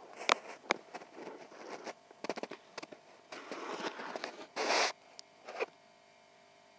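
Handling noise from a handheld camera: rustling and scraping with a few sharp clicks and one short louder rustle just under five seconds in, ending about six seconds in. The motorcycle's engine is not running.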